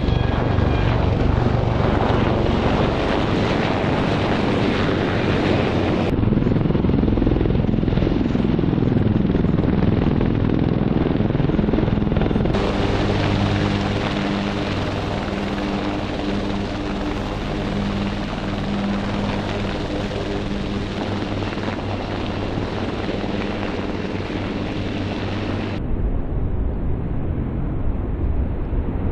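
Military helicopters in flight, their turbine engines and rotors running steadily. In the first part the pitch sweeps up and down as an aircraft passes.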